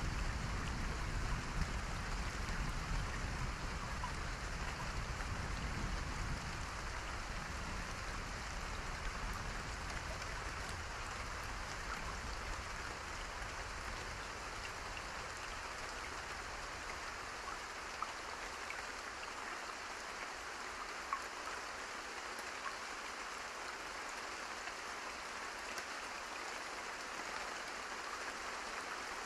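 Steady rain with scattered individual drops heard through it. A low rumble underneath fades away over the first several seconds.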